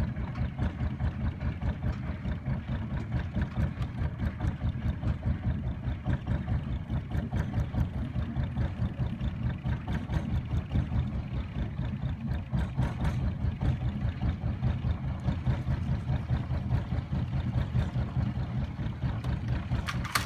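Long-tail boat engine running steadily at cruising speed, heard close up from aboard the wooden boat as an even, fast pulsing throb.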